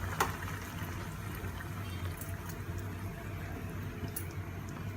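Coconut fish-curry gravy simmering in a pan over a gas flame, with soft bubbling and scattered faint pops. A single sharp click comes just after the start.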